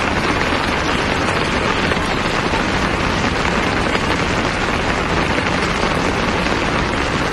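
Fast-flowing floodwater rushing through a street in heavy rain, a loud, steady noise with no pauses.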